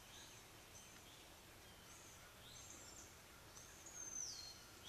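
Near silence with faint songbirds calling. One clearer high whistle slides down in pitch near the end.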